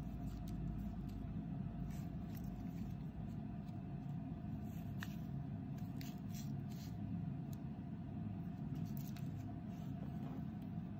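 Steady low rumble with a faint steady hum, and a few light clicks and taps as small foil-wrapped ball shell fireworks are handled and set down on a wooden floor.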